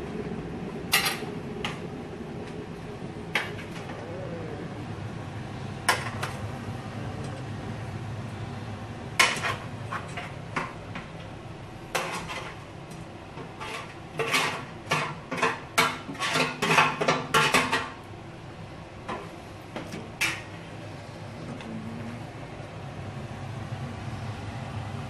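Cookware clatter: metal pans and utensils knocking against a stainless steel soup pot as browned meatballs are tipped in. Scattered single knocks, then a dense run of several a second about halfway through, over a steady low hum.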